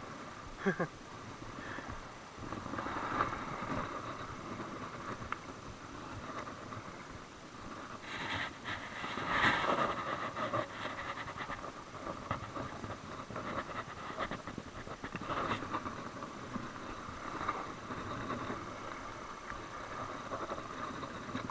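Shoreline ambience: a steady wash of wind and small waves lapping, swelling and easing every few seconds.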